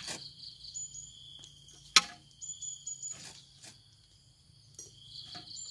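Insects chirping steadily at a high pitch with a fast pulsing rhythm, broken by a few short knocks and thuds, the loudest a sharp knock about two seconds in.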